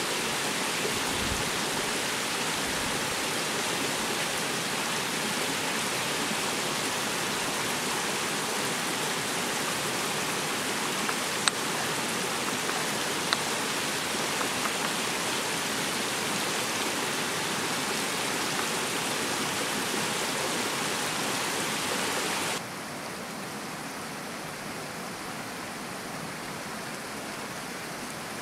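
Steady rush of running stream water, with two light taps of a pestle in a small stone mortar about halfway through. The water sound drops to a lower level a little before the end.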